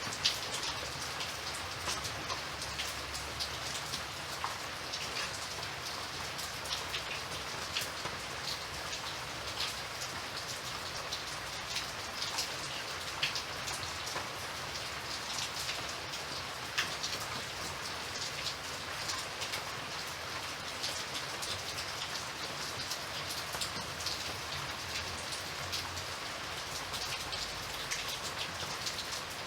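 Steady rain falling on a surface, an even hiss with many scattered drop ticks.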